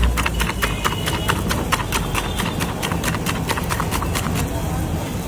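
Eggs being beaten by hand in a steel tumbler: the utensil clinks rapidly against the metal, about six clicks a second, and stops near the end.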